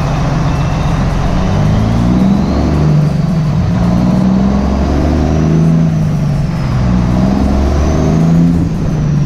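Diesel dump truck engine pulling up through the gears of a 10-speed manual gearbox. The revs climb, drop at a shift and climb again, three times over, with a high whine rising and falling along with them. The throttle is eased on gently after each shift.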